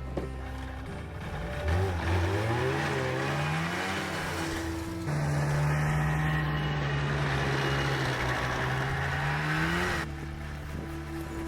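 Vehicle engine accelerating, its pitch rising for a couple of seconds, then running at a steady pitch with road or track noise. The sound changes abruptly about five seconds in and again near the end.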